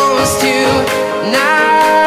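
Background pop song with singing over instruments and a steady beat; the melody slides up into a long held note about one and a half seconds in.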